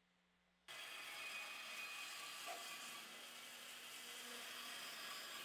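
Bandsaw running, a faint steady whir that comes in abruptly about two-thirds of a second in.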